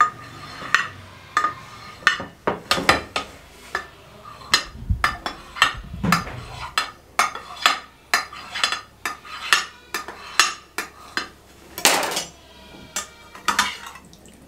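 Knife blade clicking against the bottom of a glass baking dish, over and over, as set jelly is cut into cubes: an irregular string of sharp taps, one louder knock a couple of seconds before the end.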